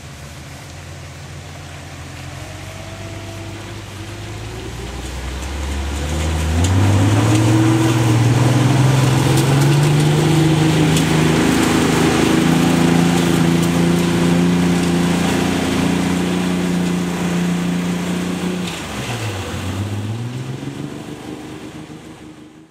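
Off-road 4x4 engine revving up under load, its note climbing and getting louder, then held at high revs. Near the end the revs drop sharply and pick up again before the sound fades out.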